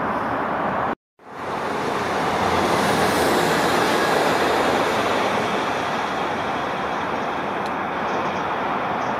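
Passenger train running past on the line: a steady rush of wheel-on-rail noise, loudest around three to four seconds in and then easing off. A brief total dropout about a second in marks a cut in the recording.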